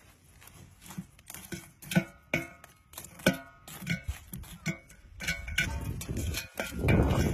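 Irregular knocks and clinks against an upturned aluminium pot, some with a brief metallic ring, as charcoal is pushed in around its rim. A louder scraping of coals and dirt begins near the end.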